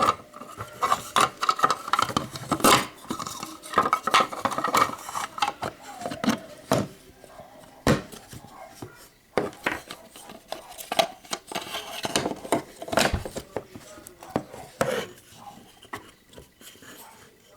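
Small plastic and metal parts of a PC satellite speaker being handled during disassembly: a string of irregular clicks, knocks and clatter, with some scraping in the first few seconds.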